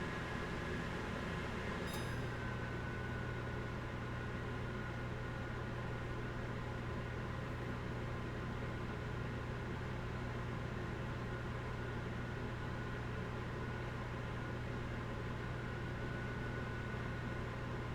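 Microwave oven fan running steadily: a low hum with a thin whine above it and an even whoosh of moving air. About two seconds in there is a small click, the hum grows a little stronger and the whine drops slightly in pitch.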